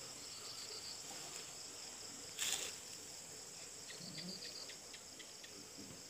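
Crickets chirping steadily in a faint, high-pitched drone, with a brief rustle about two and a half seconds in and a few faint clicks after it.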